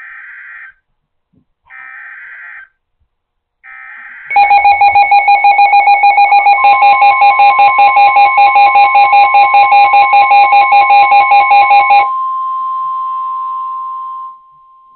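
NOAA Weather Radio alert signal: three short bursts of SAME digital header data about two seconds apart, then a loud, rapidly pulsing electronic alarm for about eight seconds. Under it the steady weather-radio warning tone starts and carries on alone for a couple of seconds after the pulsing stops; the alert leads into a tornado warning.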